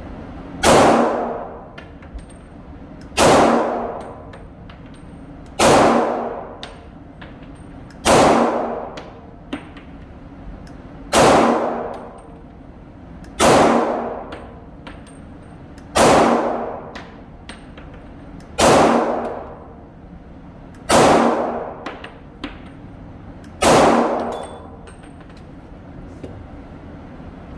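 HK VP40 pistol in .40 S&W firing ten slow, deliberate single shots, about one every two and a half seconds. Each shot is a sharp report with a short ringing decay.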